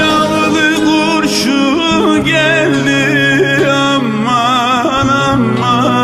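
Background music: a singer's wavering, ornamented melody over held bass notes.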